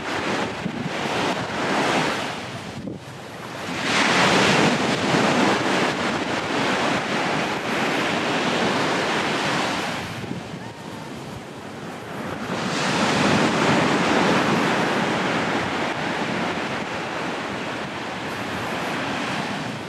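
Sea waves breaking and washing up the beach, swelling louder about four seconds in and again after about twelve seconds, with wind on the microphone.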